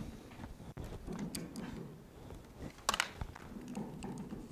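Microphone handling noise as a mic is set up: scattered faint knocks and rustles, with one sharper clunk about three seconds in.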